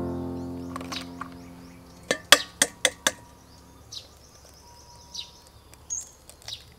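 Eggshells tapped against the rim of a stainless steel bowl and cracked open: a run of four sharp clicks about two seconds in. Birds chirp faintly later on.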